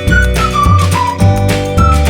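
Upbeat background music: a whistled or flute-like melody over a steady bass and beat.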